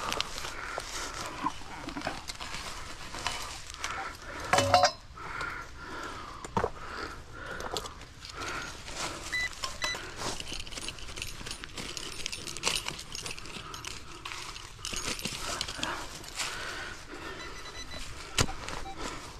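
Hand digging in leaf-littered soil: a digger scraping and crunching through dirt, dry leaves and twigs, with irregular clicks and rustles and a louder clatter about four and a half seconds in.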